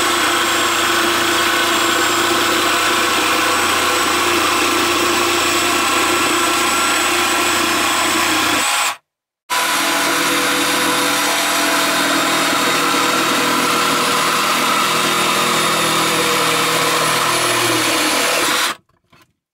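Bosch GST 18V-Li cordless jigsaw running steadily as it saws through a floorboard, its blade depth held to the board's thickness by a wooden offcut under the shoe. It stops abruptly about nine seconds in, restarts half a second later and stops again shortly before the end.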